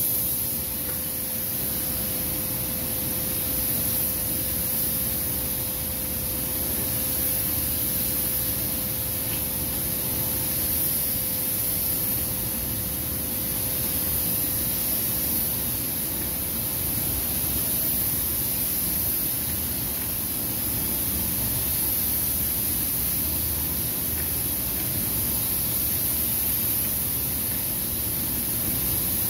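Compressed-air paint spray gun hissing inside a paint spray booth, its air flow and the booth's ventilation making a steady rushing hiss with a faint constant hum.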